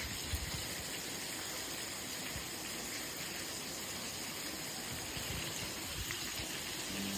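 Steady rain noise: an even, unbroken hiss. A few pitched music notes come in right at the end.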